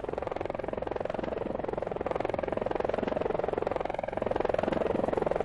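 Helicopter running steadily, its rotor giving a fast, even pulse.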